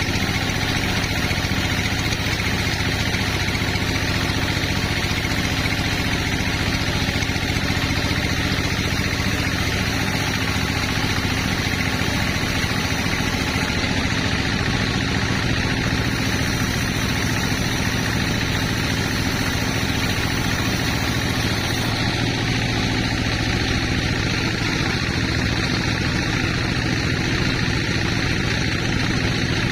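Sawmill machinery running steadily: an engine-driven drone with a constant low hum that does not rise or fall.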